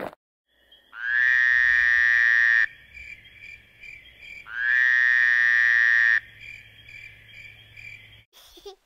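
An added sound effect: two long, loud buzzing tones, each about a second and a half, over a faint steady pulsing chirp that stops shortly before the end.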